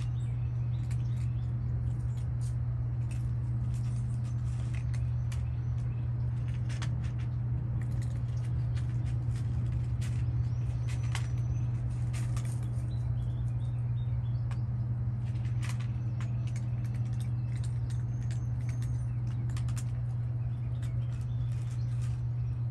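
Cats eating, their chewing and bowl-nudging making irregular small clicks and crunches, over a steady low hum. A few faint bird chirps come in now and then.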